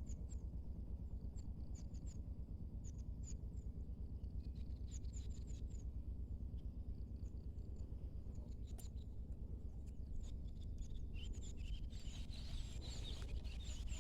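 Small birds chirping again and again, short high downward-sliding notes, over a steady low outdoor rumble; a denser burst of chattering comes in near the end.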